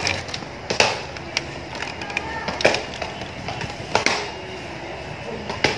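Thin plastic bags being handled and crinkling, with four sharp clicks spread a second or two apart.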